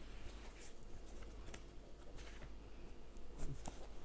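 Faint rustling with a few light scattered ticks: a crochet hook working t-shirt yarn through stitches.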